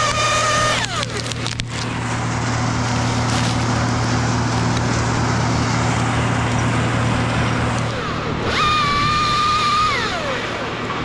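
Chainsaw whining at full speed, then dropping away as the trigger is let go just under a second in; a stretch of rough noise follows. About eight seconds in the saw spins up again, holds steady for about a second and a half, and winds down. A low steady engine hum runs underneath until about eight seconds in.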